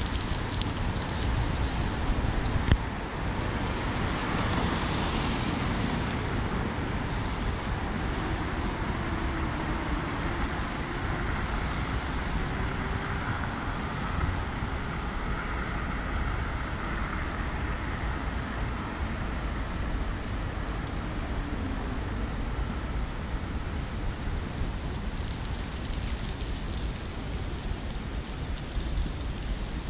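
Wind buffeting the camera microphone over a steady hiss of rain, with a car's tyres passing on the wet road partway through. One short sharp knock about three seconds in.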